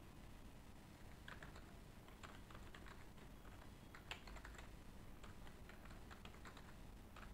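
Faint typing on a computer keyboard: a run of quick, irregular key clicks that starts about a second in.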